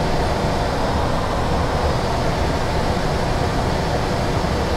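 Steady rush of air and engine noise in a Boeing 737 NG flight deck during the initial climb after takeoff, with the engines still at takeoff thrust.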